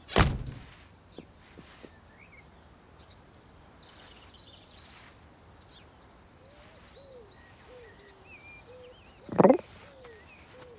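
A door slams shut, then quiet garden ambience with birds chirping and calling. A short loud sound about nine and a half seconds in.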